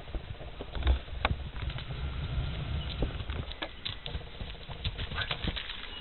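Hoofbeats of a Welsh × Thoroughbred pony cantering on sand arena footing: irregular dull thuds, the loudest about a second in.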